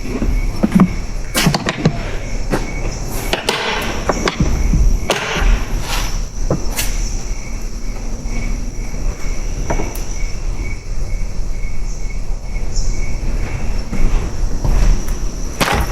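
Insects chirping steadily, with a regular pulsing chirp under a continuous high trill. Irregular rustles and knocks break in close by, most of them near the start and again near the end.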